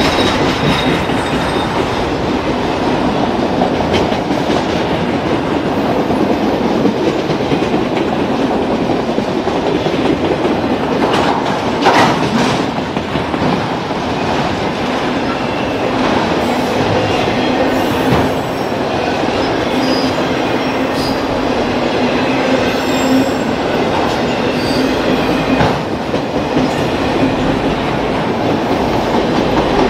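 Freight train cars of a CSX mixed freight rolling past on the rails, loud and steady, with a sharp clank about twelve seconds in and a few short high-pitched wheel squeals later on.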